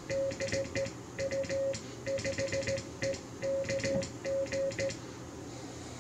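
Morse code sent with an iambic paddle: the Icom IC-7610 transceiver's CW sidetone, a steady tone near 600 Hz, keyed in dits and dahs, with the paddle clicking in time. The keying stops about five seconds in.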